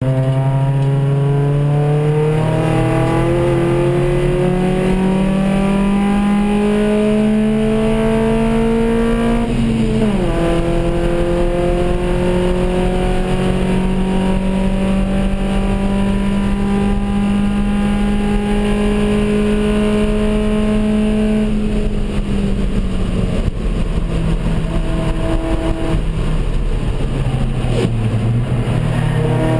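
Ford Focus race car's four-cylinder engine heard from inside its cabin under hard acceleration: the revs climb for about ten seconds, drop sharply at an upshift, then hold a long steady pull. About twenty-two seconds in the engine comes off the throttle, with a few short rises in pitch, and revs up again near the end.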